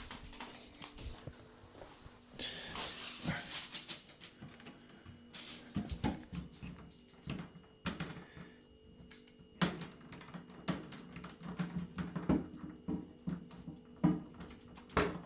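Appliance packaging being handled and pulled off: scattered knocks, clicks and short rustles of cardboard and plastic, in an irregular rhythm.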